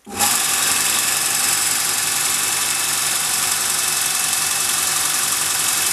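Robert Sorby ProEdge belt sharpener switched on: its motor and abrasive belt start abruptly and run steadily with a loud, hissing whir.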